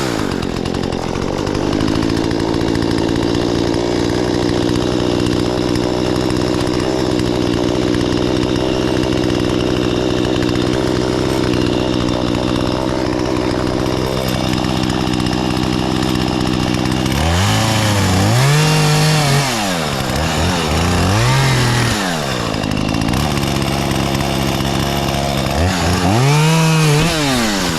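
Two-stroke chainsaw running steadily under load while cutting through wood, then revved up and down several times in the last ten seconds.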